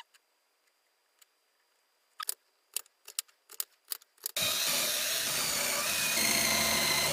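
Cordless drill boring into a plywood disc, running steadily from a little over four seconds in, preceded by a few light clicks.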